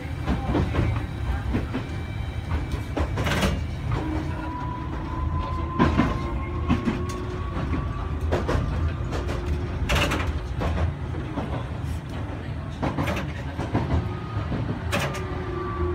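Tokyu Setagaya Line tram running along its track, heard from inside near the driver's cab: a steady low rumble under a motor whine that slowly rises in pitch and starts to fall near the end. Sharp wheel clacks over rail joints come every few seconds.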